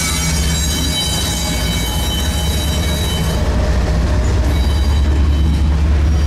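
CSX diesel-electric freight locomotives crawling past at low speed, then double-stack container well cars rolling by: a heavy, steady engine drone with a thin high whine above it.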